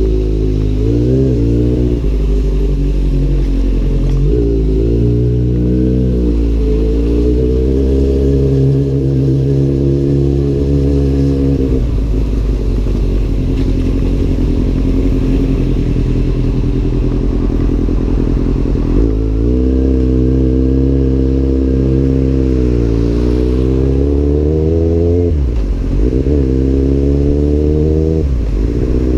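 Kawasaki Z800's inline-four engine through an Arrow aftermarket exhaust, ridden under way: it pulls up through the revs with short dips at the gear changes, eases off for several seconds near the middle, then accelerates again with a sharp drop in revs near the end at a shift.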